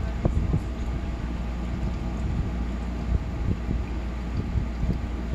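Steady low rumble of background noise with no clear events.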